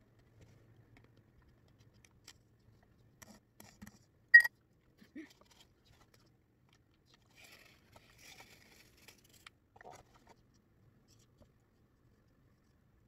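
Quiet handling sounds as a plastic stick works thick sandwich spread through a plastic-cup funnel into a glass bottle: scattered soft clicks and light scraping, with one sharp tap a little over four seconds in.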